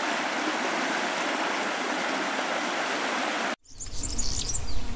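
A small stream running over rocks, a steady rush of water that cuts off abruptly about three and a half seconds in. It gives way to open-air ambience: a low rumble and a few high chirps.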